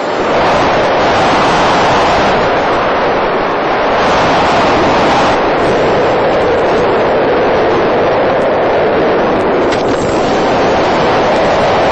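Steady rushing wind noise on the onboard microphone of a radio-controlled FPV model airplane in flight, with no clear motor tone. Its character shifts about four and five seconds in.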